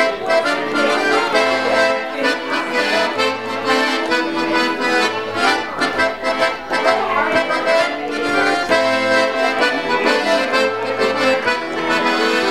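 Accordion playing a tune: a melody over held chords with a pulsing bass, going on without a break.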